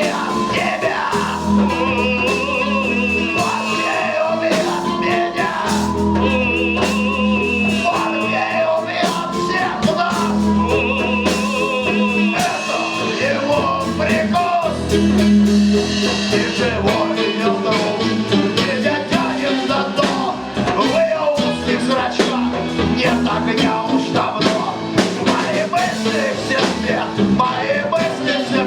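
A small rock band playing live: a singer over drums, bass and keyboards, in a bluesy rock groove. A high, wavering melody line comes in three times during the first half.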